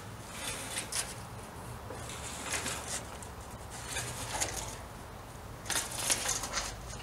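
Footsteps crunching irregularly on sandy gravel while a steel sliding gate is pushed along by hand, the crunches loudest about six seconds in.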